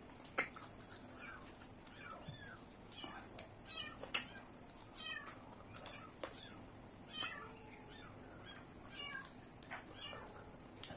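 Close-up mouth sounds of eating by hand: wet lip smacks and short squeaky sucking chirps as food is pushed in with the fingers. Two sharp smacks stand out, about half a second and about four seconds in.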